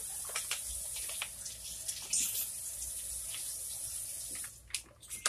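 Foil pouch of thick curry sauce crinkling and rustling as it is squeezed out into a pan, with scattered small clicks. Underneath is a steady high hiss that fades about four and a half seconds in.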